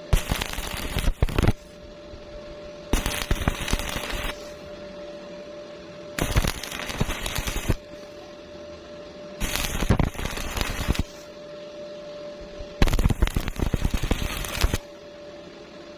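Stick-welding arc crackling in five bursts of about a second and a half each, the arc broken off for about as long between them, as a wide gap is bridged on a vertical joint. A faint steady hum carries through the pauses.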